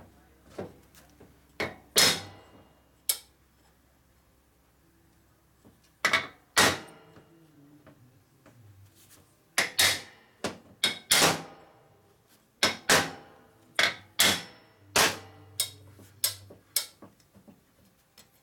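Small hammer tapping on the rocker arm assembly of a Harley-Davidson panhead cylinder head: sharp metallic taps in irregular clusters, with a pause of a few seconds near the start. The taps free parts that sit too tight on their locating dowels and bind.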